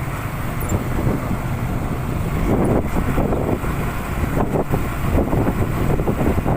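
Honda CB150R motorcycle's single-cylinder engine running steadily while being ridden, with wind noise buffeting the microphone.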